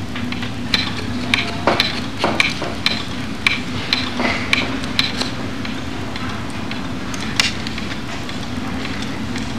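A run of short, sharp clicks, about two a second, over a steady low hum. The clicks stop about five seconds in, and one more comes near the end.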